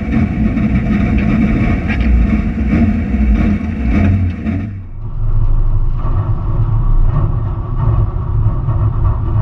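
Rally car engine running, heard from inside the cabin, uneven with rising and falling revs for the first few seconds. About five seconds in the sound changes abruptly to a lower, steady idle.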